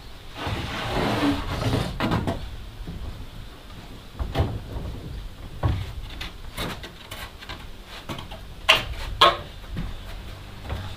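Wooden boards being handled and set against a timber wall frame: a scraping slide of wood, scattered wood-on-wood knocks, and two sharper knocks close together late on.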